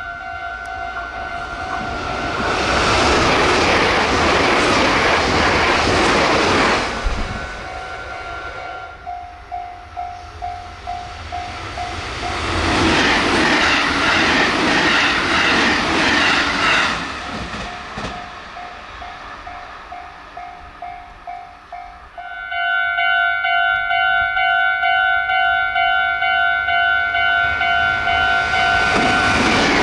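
Japanese level-crossing warning bell ringing steadily in a fast repeating pulse as express trains pass at speed: a Meitetsu 2200 series limited express rushes past with rail clatter early on, then a JR Central 313 series special rapid a few seconds later. About two-thirds of the way through, a louder, higher-pitched crossing bell starts up, and another train begins rushing in near the end.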